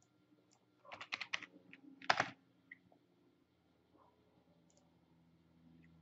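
Typing on a computer keyboard: a quick run of keystrokes about a second in, then one louder click just after two seconds.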